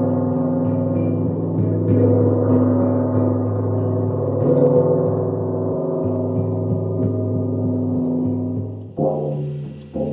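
Large gong on a stand kept sounding by repeated soft mallet strokes: a steady wash of many overlapping tones. About nine seconds in, the gong wash cuts off and gives way to a few deep struck notes about a second apart.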